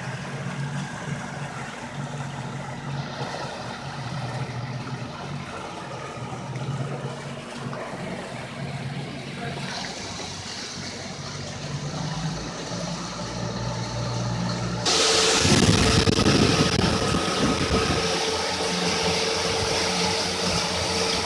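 Boat motor running steadily over water. About fifteen seconds in, the sound suddenly gets louder, with a rushing noise and a steady higher hum.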